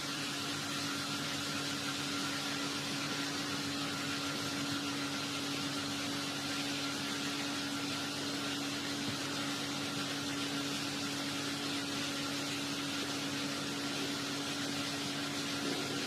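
Steady background hum with an even hiss, holding one constant low tone throughout.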